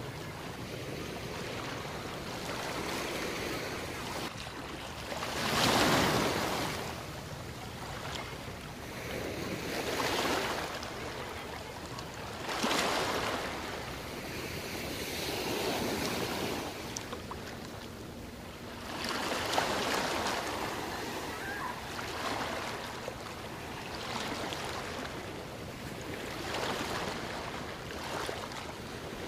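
Small sea waves breaking and washing up a sandy beach: a steady wash of surf that swells every few seconds, the loudest surge about six seconds in.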